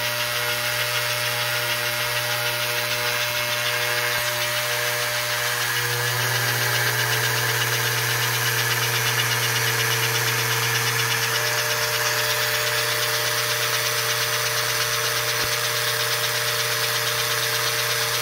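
American Flyer 290 toy steam locomotive's freshly serviced electric motor and gearing running steadily with the drivers spinning freely off the track, over a steady electrical hum; the whine rises slightly in pitch about six seconds in.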